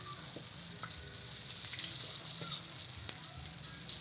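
Food frying in hot oil in a pan: a steady sizzle with many small crackles and pops, one sharper pop about three seconds in.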